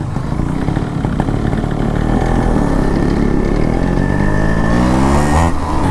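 Yamaha RX two-stroke single-cylinder motorcycle engine running while riding. Its pitch climbs steadily over a couple of seconds and then drops off sharply near the end.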